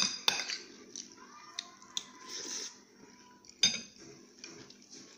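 Metal spoon clinking against a ceramic rice bowl: two sharp clinks right at the start and the loudest one about three-quarters of the way through, with softer ticks in between.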